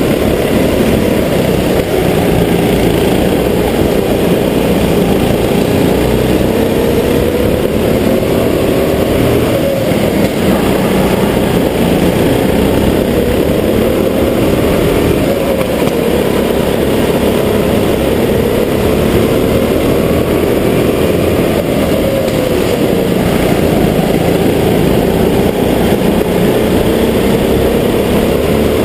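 Go-kart engine heard on board at full race pace, its pitch rising on each straight and dropping as the driver lifts for the corners, over and over.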